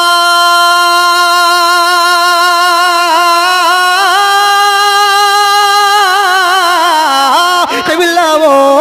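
A man's unaccompanied singing voice in naat recitation, holding one long note for several seconds, stepping slightly higher about four seconds in, then breaking into quick ornamented turns near the end.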